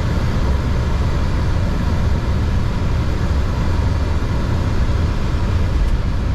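Boeing 727-200 freighter's three JT8D turbofans and airflow: a steady, loud, low rumble with no breaks.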